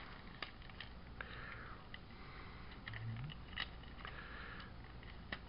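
Faint clicks and taps of the hard plastic parts of a Transformers Studio Series Overload figure being handled and worked into place, with soft breathing through the nose.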